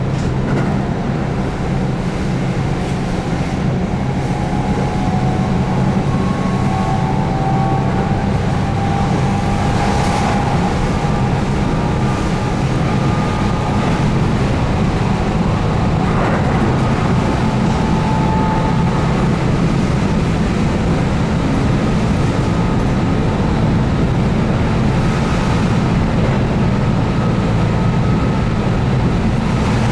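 Keihan 8000 series electric train running at speed, heard from inside the car: a steady low rumble of wheels on rail and DC traction motors, with faint whining tones drifting slowly in pitch.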